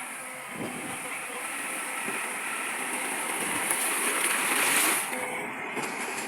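Heavy earthmoving machinery at work, a steady noisy mechanical clatter that grows a little louder, then drops back about five seconds in.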